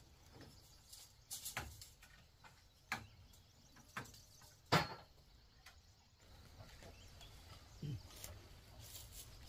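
Irregular knocks and taps from hand building work on a barn's timber roof frame: a few sharp single knocks spaced roughly a second apart, one louder than the rest, and a duller thud near the end.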